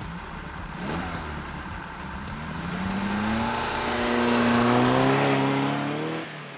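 Austin 7 racing special's small four-cylinder engine accelerating as the car pulls away, its pitch climbing steadily and loudest about five seconds in, then fading as the car drives off.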